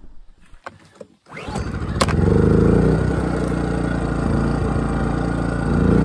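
Small 2000 W inverter generator starting up about a second in, its engine rising in speed with a sharp click about two seconds in, then running steadily at a loud, even pitch.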